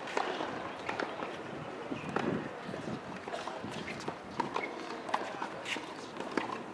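Tennis balls struck by racket strings in a baseline practice rally on a hard court: a sharp pock every second or so, with scuffing footsteps between hits.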